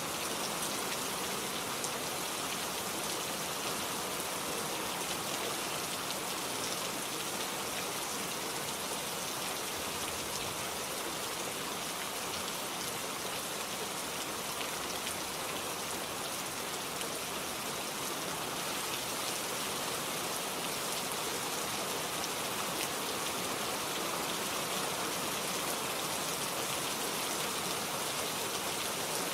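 Steady rain falling on foliage, an even hiss with fine drop ticks that holds constant throughout.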